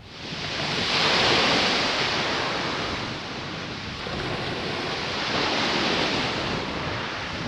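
Small sea waves breaking and washing on a shingle beach, the surf swelling twice.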